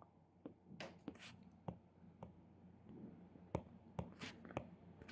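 Faint taps and scratches of a stylus writing on a tablet screen, about a dozen short ticks spread unevenly through.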